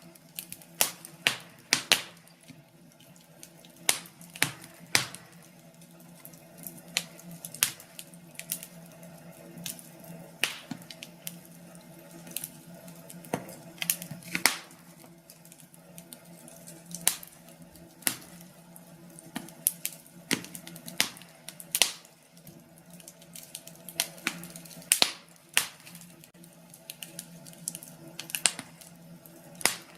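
Wood fire in a fireplace crackling: irregular sharp pops and snaps, some loud, over a faint steady hum.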